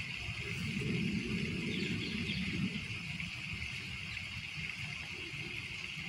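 Lake water lapping at the shore, a steady wash with a low rumble that swells for a couple of seconds about a second in.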